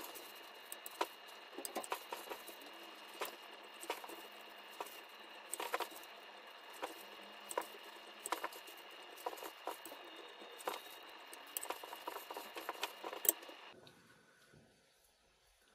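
Kitchen knife slicing sausages on a cutting board: irregular knocks of the blade hitting the board, one or two a second, stopping about 13 seconds in.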